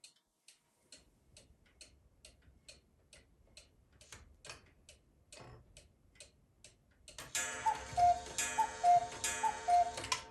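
Mechanical cuckoo clock ticking steadily, about three ticks a second. About seven seconds in, the clock strikes: its bellows-driven pipes sound the two-note cuckoo call, high then low, three times, much louder than the ticking.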